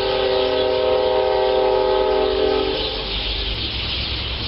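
A train's air horn sounding one long steady blast, several tones at once, which stops about three seconds in.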